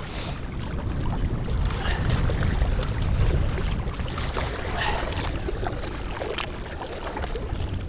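Wind buffeting the microphone, a steady low rumble that rises and falls, with faint scattered ticks and rustles over it.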